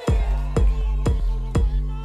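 Afro house track playing in a DJ set. The kick drum and bassline drop back in right at the start, after a filtered passage with no bass, and settle into a steady four-on-the-floor beat of about two kicks a second.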